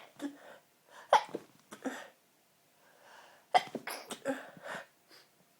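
A woman sneezing several times in quick succession, a sneezing fit that red wine sets off for her. Sharp sneezes come about a second in, just before two seconds and at about three and a half seconds, each after a quick in-breath, the last trailing into a few smaller bursts.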